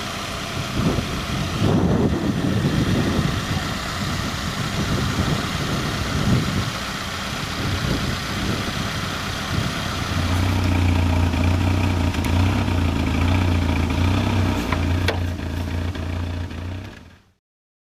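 Peugeot 205 petrol engine idling unevenly, not running cleanly. About ten seconds in it settles into a steadier, deeper drone, and the sound cuts off suddenly near the end.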